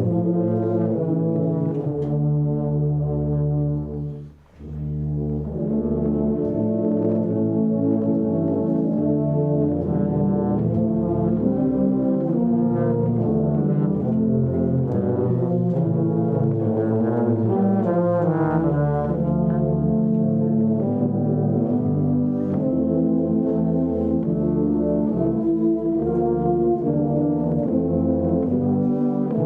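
Instrumental music played by a brass ensemble, several parts sounding together in sustained, moving chords, with a brief break between phrases about four seconds in.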